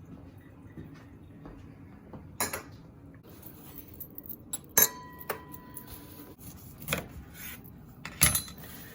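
Glasses and utensils clinking and knocking as drinks are mixed: a handful of separate clinks spread out over several seconds, one of them ringing on briefly like a struck glass.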